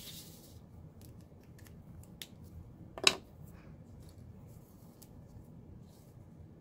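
Art tools handled on a craft table: a brief scratch of a fine-tipped tool on the card, then a few small clicks and one sharp click about three seconds in as tools are put down and picked up.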